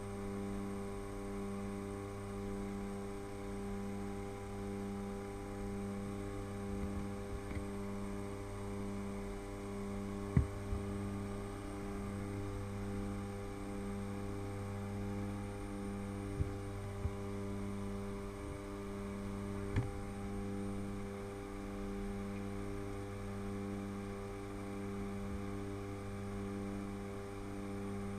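Engines and propellers of a twin-engine jump plane droning steadily as heard in the cabin, with a slow pulsing about once a second, typical of two propellers turning slightly out of sync. A few small knocks are heard about a third and two thirds of the way through.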